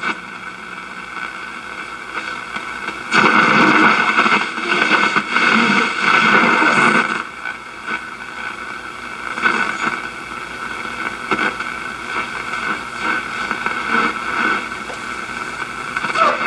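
1937 Sears Silvertone tube radio receiving shortwave: static hiss with a few steady whistling tones through its speaker. The noise swells louder for a few seconds about three seconds in, then settles back.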